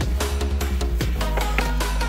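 Background music: a song with a steady drum beat over heavy bass, instrumental in this stretch.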